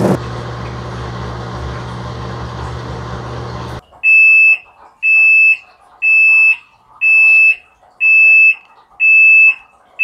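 Black+Decker 0.84 cu ft portable washing machine running with a steady low hum that cuts off about four seconds in. Its end-of-cycle beeper then sounds a high-pitched beep about once a second, each beep about half a second long, signalling that the wash is finished.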